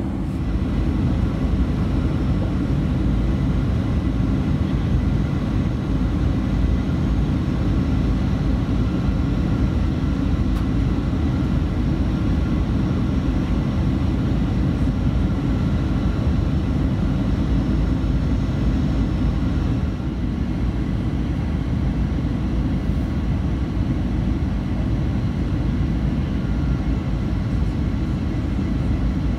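Steady cabin noise of a Boeing 737-900 airliner in flight, heard from inside the cabin: a deep, even rush of engines and airflow with faint steady tones above it, easing slightly about twenty seconds in.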